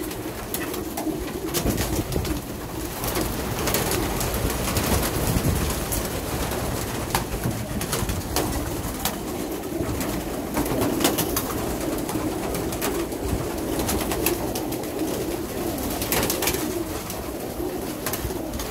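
A loft full of white domestic pigeons cooing continuously, with scattered sharp clicks and flutters of wings.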